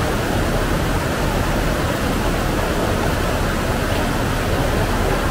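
Fast-flowing muddy floodwater rushing over a road, a loud, steady, unbroken noise.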